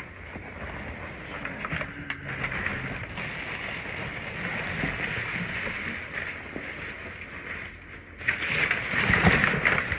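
Packing paper rustling and crumpling as a shipping box is unpacked by hand, louder near the end.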